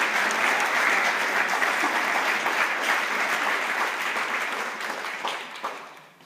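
Audience applause, steady clapping that dies away near the end.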